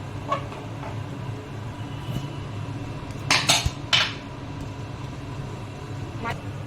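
Metal cookware clanking: a few light clinks, then three loud sharp clanks about three to four seconds in, and one more near the end.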